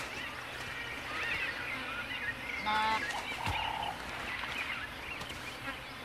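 Wild birds chirping and calling, with one louder layered call about three seconds in followed by a short steady whistled note.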